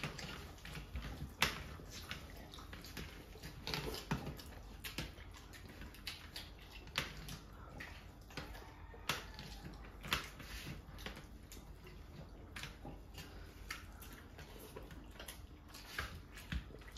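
Faint wet eating sounds: fingers squishing rice and curry on steel platters, with chewing and many scattered short smacks and clicks.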